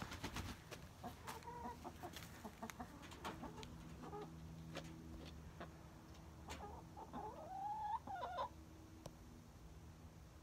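Backyard hens clucking: a few short clucks about a second in, then a longer call that rises in pitch near the end, with scattered faint clicks.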